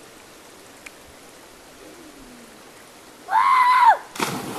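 River water running steadily, then a child's loud yell, rising and falling, during a jump off a rock, and a splash as the child hits the water near the end.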